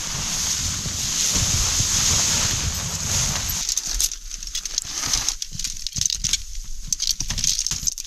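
Nylon tent fabric rustling as it is shaken out and spread, with wind buffeting the microphone. From about three and a half seconds in the rush drops away, leaving scattered clicks and knocks of tent poles being handled and fitted together.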